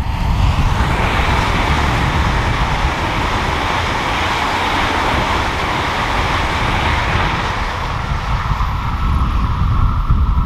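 ICE high-speed electric train passing at speed: a steady rushing of wheels and air that builds about half a second in and eases off near the end, over a low rumble.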